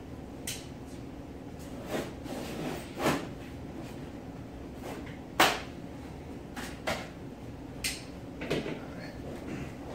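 Large cardboard box being handled on a table: a string of irregular knocks and short scrapes and rustles of cardboard, the sharpest knock about five and a half seconds in.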